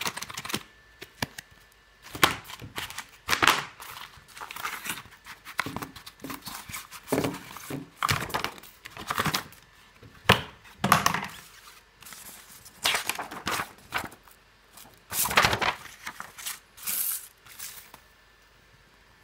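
Cardboard box and paper sheets being handled on a wooden table: an irregular run of thunks, rustles and scrapes as the box is opened and the instruction sheets and printed card sheets are taken out and laid down. The handling dies away near the end.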